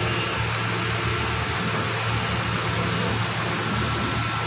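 Heavy rain pouring steadily, a continuous even hiss, over a steady low machine hum.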